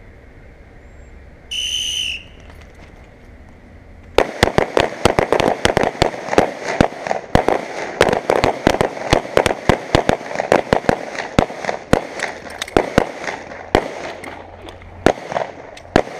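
A range whistle blows once. About two seconds later several handguns open fire along the firing line in a long run of rapid, overlapping shots that thins out toward the end: a timed barricade string of fire, three shots from each side.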